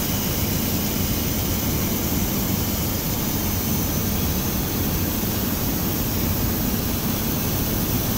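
Tap water pouring in a steady stream into a stainless steel pressure cooker pot, splashing into the water already in it. The pour makes an even, unbroken rushing sound as the pot fills.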